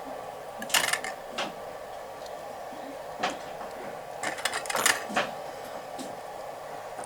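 Hands handling the wiring of a ceiling fan stator being rewound, with scattered small clicks and rustles, a quick cluster of them about two-thirds of the way in, over a steady background hum.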